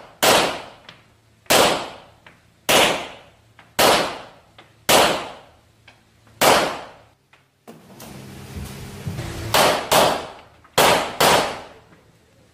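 Rock Island Armory Tac Ultra FS HC 1911-style pistol firing about ten shots, each echoing sharply off the walls of an indoor range. Six shots come about a second and a half apart, then after a pause of about three seconds come two quick pairs.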